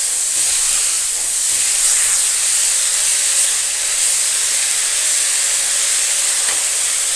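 Fenugreek and dill leaves with potato pieces sizzling steadily in oil in an iron kadhai as a spatula stirs them. The hiss is the leaves' own water steaming off as they heat and wilt down.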